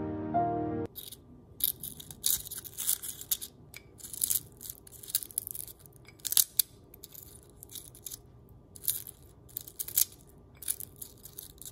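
Crisp, browned outer leaves of an air-fried Brussels sprout crackling and crunching as wooden chopsticks crush and tear them in a glass bowl, in many short, irregular crackles. Soft piano music plays for about the first second, then cuts off.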